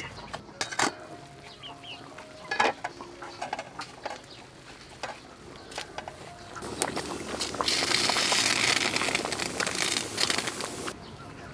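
A steel pot of soup boiling hard over a fire, a loud steady bubbling hiss from about six and a half seconds in that stops suddenly near the end, as water spinach goes into the pot. Before that, scattered light clicks and a few chicken clucks.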